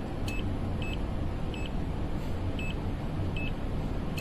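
HABOTEST HT121 pen-type multimeter's buzzer giving short high beeps, about six, at uneven intervals, while the meter is in phase rotation sequence test mode. A steady low hum runs underneath.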